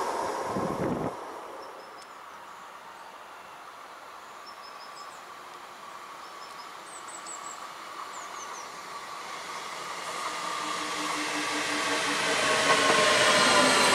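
A DB Regio electric multiple unit approaching. Its running noise and the whine of its traction motors rise steadily over the last few seconds. At the start, the noise of a passing double-deck train cuts off about a second in, leaving a quiet stretch with a few faint high chirps.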